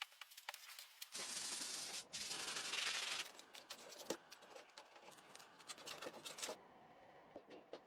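Rubbing on a wooden surface: a steady hiss of rubbing for about two seconds, starting a second in with one brief break, then shorter scraping strokes and light knocks that die away near the end.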